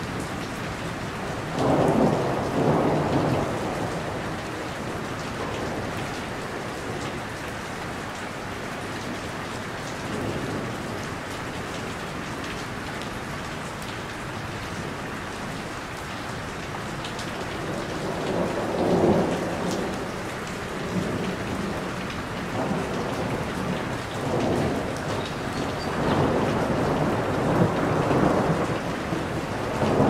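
Steady heavy rain falling on a roof, a continuous patter. It swells louder for a few seconds about two seconds in, again around the middle, and again near the end.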